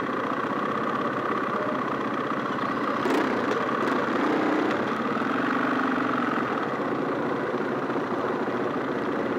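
Off-road motorcycle engines idling close by, steady, with the engine note swelling briefly a few seconds in and two sharp clicks about three and four seconds in.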